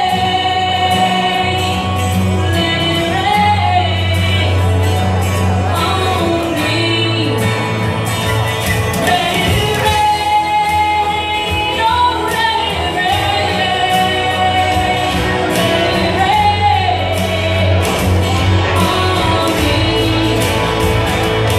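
A woman singing solo into a handheld microphone over musical accompaniment with a steady bass line, amplified through a PA.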